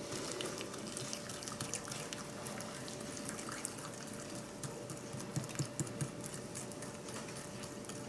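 Mini whisk stirring warm honey and brown sugar in a small glazed ceramic bowl: light, irregular clicking and scraping of the wire against the bowl, with a few louder clicks about five to six seconds in. A faint steady hum runs underneath.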